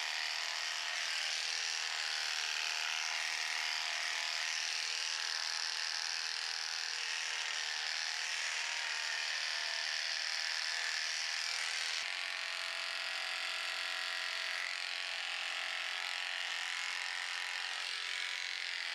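Electric horse clippers running with a steady buzz as the blades move through the horse's coat.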